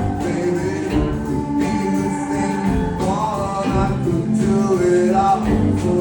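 Live band playing a song, with a voice singing over the instruments.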